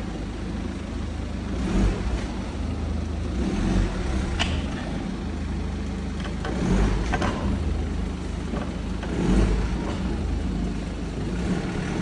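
BMW G30 5 Series car rolling with a steady low road and drivetrain rumble, and a few short sharp knocks scattered through: the knock that comes on braking.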